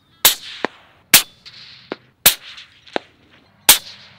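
Four high-power rifle shots from a Howa bolt-action rifle, each a sharp crack with a short ringing tail, roughly a second apart. Fainter single cracks fall between the shots.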